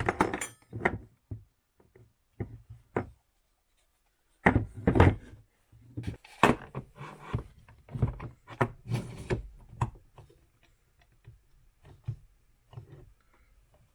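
Irregular wooden knocks, taps and clunks, busiest from about four to ten seconds in and sparser after: plywood jig parts being handled and fitted together by hand.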